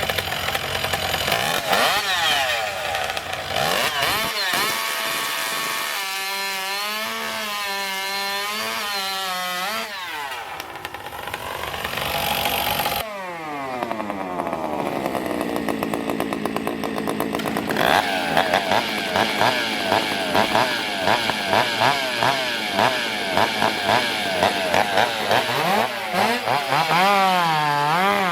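Two-stroke racing chainsaws being revved, the engine pitch swinging up and down, with a falling wind-down about halfway through and then repeated quick throttle blips, about two a second.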